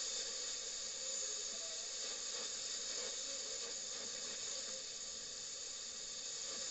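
FM radio giving a steady static hiss, with only faint traces of music under it.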